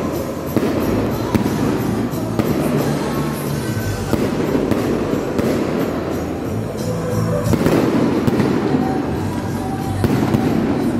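Fireworks bursting and crackling, many reports in quick succession, over music with a steady bass line.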